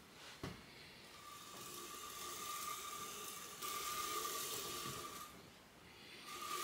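A linear guide bearing block carrying a magnetic-base dial indicator, pushed by hand along a steel profile rail. It gives a hissing whir with a faint steady tone that swells and fades as the block moves, plus a single knock about half a second in.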